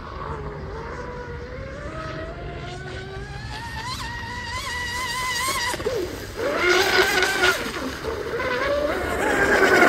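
RC F1 tunnel powerboat running at full speed, its 3674 1650kV brushless electric motor whining and rising in pitch over the first six seconds. It grows louder with a hiss of spray as the boat passes close, and swells again near the end.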